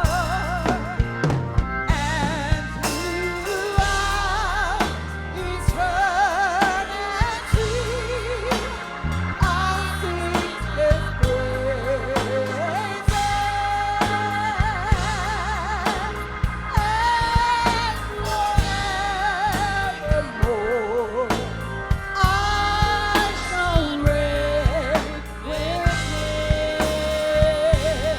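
Gospel music: a voice sings long, wavering held notes and sliding runs over drums and a steady bass line.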